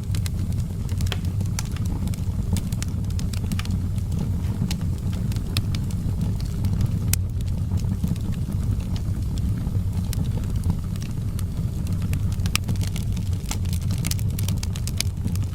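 Wood fire crackling in a fireplace: irregular sharp pops and snaps over a steady low rumble of burning, the pops coming thicker near the end.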